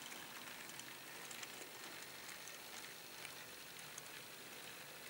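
Model railway wagons rolling along the track: faint, irregular light clicks of the small wheels on the rails over a steady hiss.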